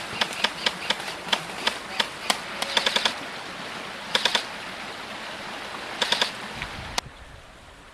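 Airsoft guns firing: a string of single shots, then three short rapid bursts, over the steady rush of a stream. The water noise cuts off abruptly near the end.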